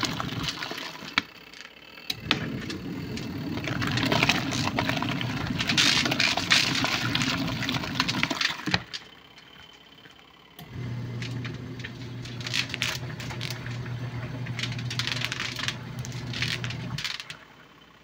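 Mini washing machine running a wash: its motor hums and the soapy water and clothes slosh in the tub. It stops about nine seconds in, starts again about two seconds later, and stops near the end.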